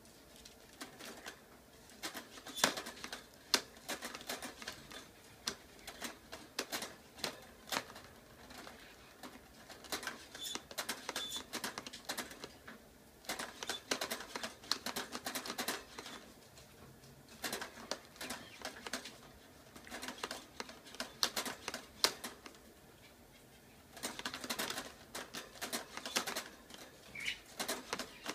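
A small pet bird rattling about in its wire cage while trying to get out: bursts of quick, sharp clicks and taps as it climbs, pecks and flutters against the metal bars and door, with short quiet pauses between bursts.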